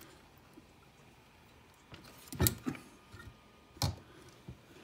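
A few sharp knocks and clunks as a plastic-and-metal RC crawler is handled and tipped over on a work mat: two knocks about two and a half seconds in and another near four seconds.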